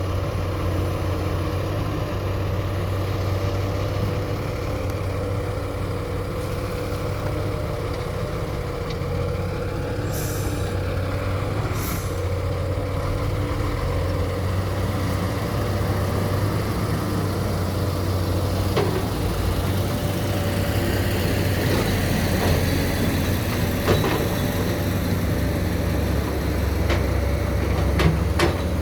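Excavator's diesel engine running steadily, with two short hisses about ten and twelve seconds in and several sharp clanks toward the end.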